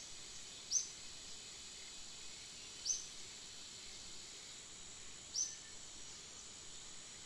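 Outdoor ambience: a steady high insect drone, with three short high chirps about two seconds apart.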